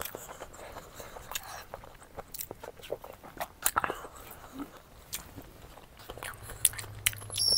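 Close-miked chewing and mouth smacking of a person eating, with many small sharp wet clicks. A low steady hum comes in about six seconds in.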